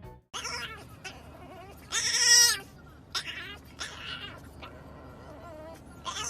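A young animal's repeated high, quavering cries: several short calls, the loudest about two seconds in and again at the end.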